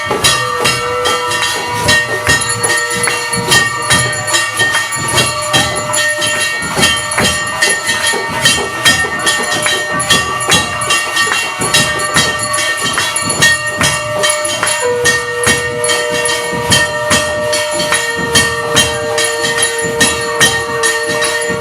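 Hindu temple aarti percussion: bells and metal cymbals clanging in a fast, steady beat over a wash of held ringing tones.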